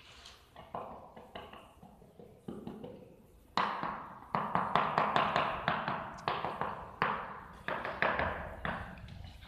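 A tile mason tapping on floor tiles: a few light taps, then from about three and a half seconds in a quick run of sharp taps, about three a second.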